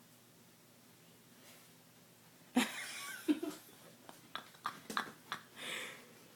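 A dog humping a stuffed teddy bear: breathy panting starting about halfway through, then a string of soft knocks and rustling.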